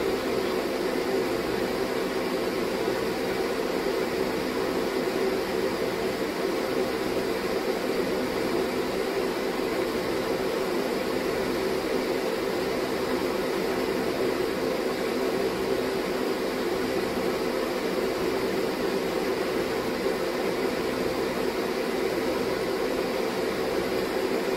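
Steady machine noise, a fan-like whir that runs unchanged, with no distinct clicks or other events.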